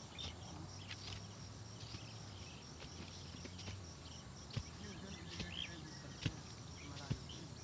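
Insects and birds chirping in short repeated calls, with a few sharp knocks around the middle and near the end.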